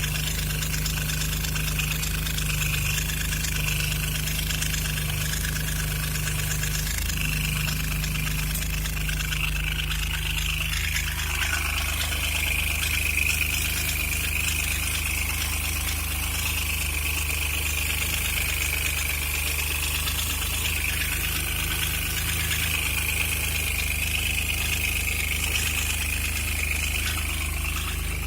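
Alfa Romeo GTV V6 Turbo engine idling steadily, with a steady high-pitched whine over the idle; the owner finds this idle noise suspect.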